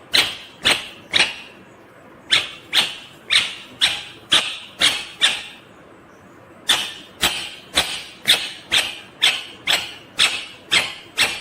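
Indian ringneck parakeet screeching: short, harsh, piercing calls repeated about twice a second, in bouts broken by pauses of about a second.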